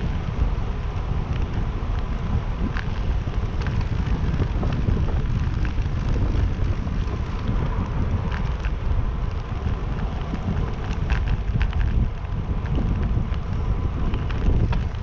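Wind rushing over the microphone of a handlebar-mounted camera on a moving bicycle: a steady low rumble, with scattered light ticks and rattles from the bike.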